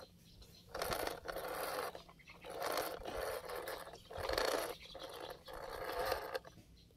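Four bursts of gritty scraping noise, each about a second long, separated by short gaps.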